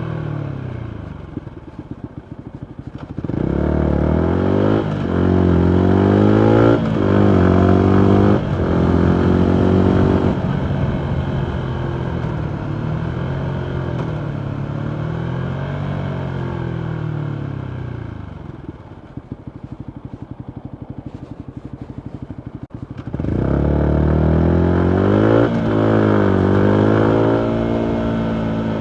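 2019 Yamaha MT125's single-cylinder four-stroke engine through a full Akrapovic exhaust, ridden in traffic. It winds down to a brief uneven idle, then about three seconds in accelerates hard through three quick upshifts. It eases off and slows back to an uneven idle past the middle, then pulls away again through two upshifts near the end.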